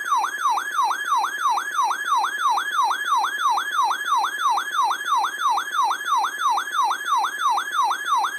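Loud electronic alert siren warbling steadily, about three quick pitch sweeps a second, sounding for a high wind warning received on NOAA Weather Radio. It cuts off abruptly at the end.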